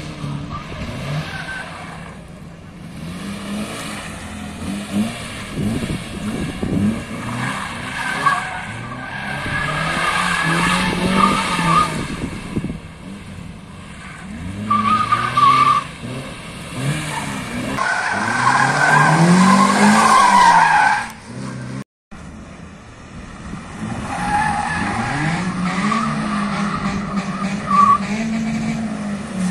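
Mazda MX-5's four-cylinder engine revving up and down hard as the car is flung through tight turns, with its tyres squealing and skidding in the corners. The sound drops out for a moment about three quarters of the way through.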